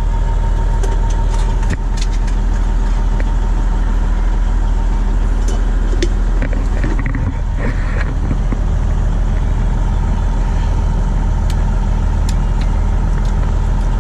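Truck's diesel engine idling steadily while its air system builds pressure before setting off.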